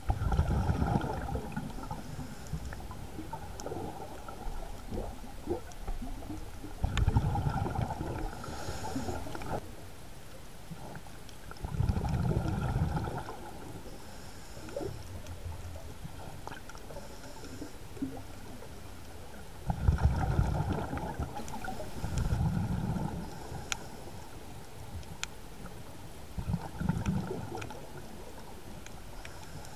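A scuba diver breathing through a regulator underwater, heard close to the camera: about six bubbling bursts of exhaled air, a few seconds apart, with quieter water noise between them.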